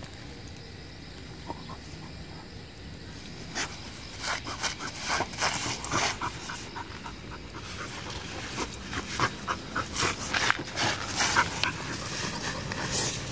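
Labrador Retriever panting in quick breaths while rubbing and rolling in sand, its body scraping through the sand. The sounds begin a few seconds in and grow busier and louder toward the end.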